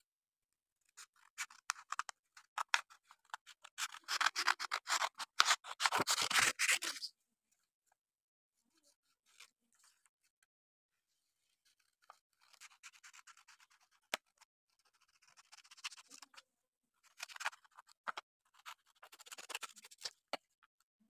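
Scissors snipping through thin paper: a dense, loud run of rapid snips for the first several seconds, then a pause and several shorter, quieter runs of snips with paper rustling.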